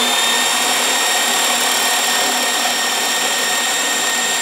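Electric drill running at full, steady speed with a high motor whine, driving a 32 mm spade bit into a wooden softwood beam as it chips out the wood.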